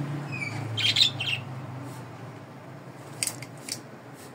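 Hand trigger spray bottle misting plant leaves in a few short hissy squirts, about a second in and again a little past three seconds. A few bird chirps near the start.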